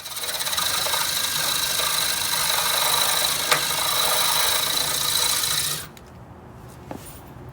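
Power drill bit running steadily against a hardened steel roll pin in the Ariens snowblower's axle, grinding with a high, steady whine. The bit makes little headway because the pin is really hardened. The drill stops suddenly about six seconds in.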